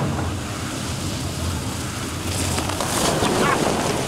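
Water running down an inflatable water slide, a steady hiss like rain. From about two and a half seconds in, a rider on an inner tube rushes past through the water with a louder spell of splashing.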